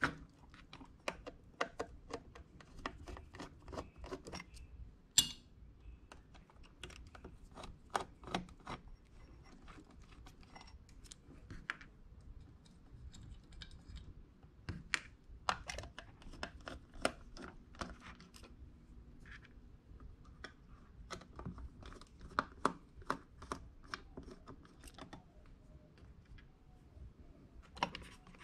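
Small clicks and taps of hands working screw-in rubber feet out of the metal base plate of a plastic switch box and setting them down on a wooden bench, with one sharper clack about five seconds in. Near the end, the metal cover plate is lifted off the box.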